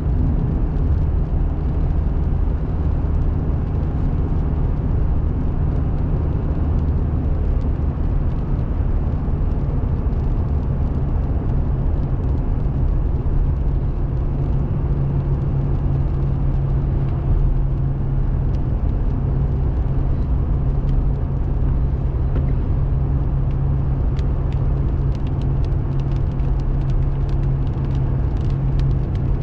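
Steady engine and tyre drone of a car cruising on a highway, heard from inside the cabin. Scattered faint ticks come in over the last few seconds.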